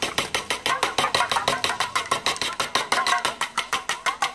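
Egg being beaten by hand in a stainless steel bowl: the utensil clicks against the metal bowl in quick, even strokes, about eight a second.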